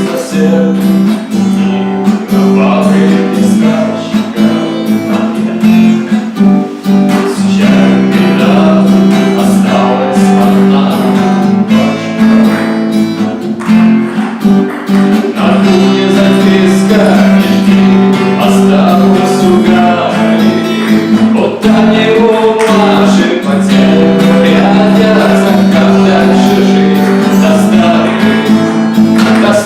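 Acoustic guitar playing continuously, strummed and plucked, over a held low note.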